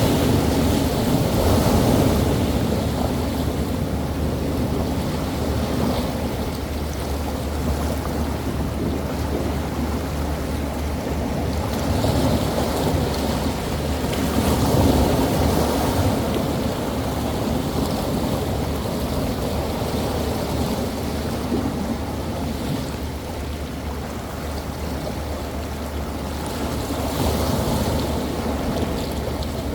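Rough sea surf: waves washing and breaking on the shore as a steady roar, surging louder every several seconds as bigger waves come in, with wind noise on the microphone.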